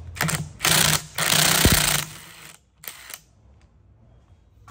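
Cordless impact wrench hammering as it loosens a rusty bolt on a brush cutter's handlebar clamp. It comes in three loud bursts over the first two seconds, the last the longest, then a short burst about three seconds in.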